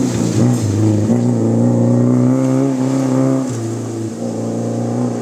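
Modified Maruti Gypsy rally car's engine accelerating as the car passes close by and pulls away, the engine note dropping and easing off about three and a half seconds in.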